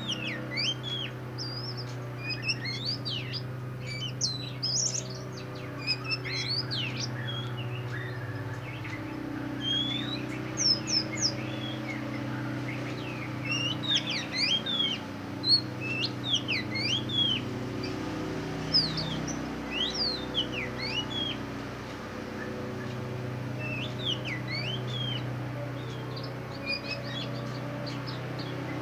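Caged black magpie-robin (kacer hitam, the all-black form of the oriental magpie-robin) singing: varied, quick whistled notes sweeping up and down, in bursts of phrases with short pauses, over a steady low hum.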